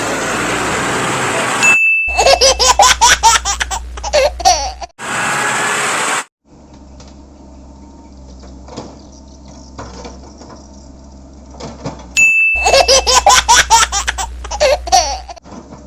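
A short high ding followed by a few seconds of loud, choppy laughter sound effect, heard twice, once about two seconds in and again about twelve seconds in. A steady rushing noise opens the stretch and returns briefly after the first laugh, and a quiet spell of faint clicks and low hum lies in between.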